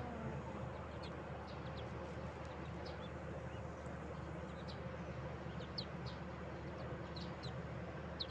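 Newborn ducklings peeping faintly: scattered short, high chirps every half second or so while the brood feeds.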